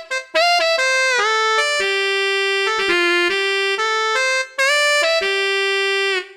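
E-mu Proteus/1 XR sound module playing a synth lead patch from a keyboard: a single-note melody with the pitch sliding between some notes. The last note fades out near the end.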